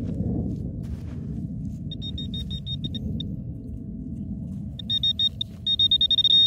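Metal-detecting pinpointer sounding its high electronic alert: rapid beeps for about a second, a pause, then beeps that quicken into an unbroken tone near the end as the probe closes in on a small buried metal target. A low steady rumble runs underneath.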